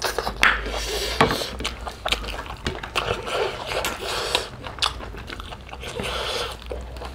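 Two people eating mutton curry and rice with their hands: biting and chewing, with many short wet clicks.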